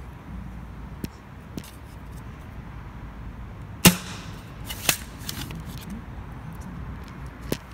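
Nerf blaster with a muzzle brake firing short foam darts: sharp pops, the loudest about four seconds in, with two more shortly after and another near the end, and a few softer clicks in between.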